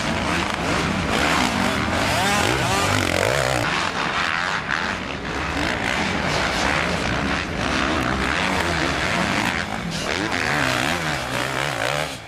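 Motocross dirt bike engines revving hard as the bikes race past close by. The pitch rises and falls again and again as the riders work the throttle.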